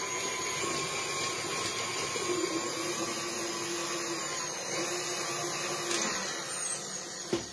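Electric stand mixer running steadily, its motor whirring as the beater works cake batter in a metal bowl, then switched off with a knock near the end.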